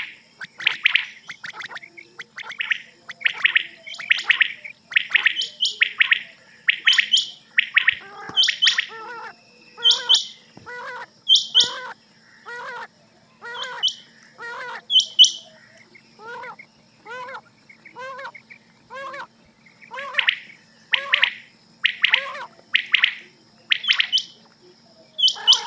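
Rain quail calling over and over, short sharp notes about one to two a second. Higher and lower calls overlap, from a recorded quail-call lure. A faint steady hum runs underneath.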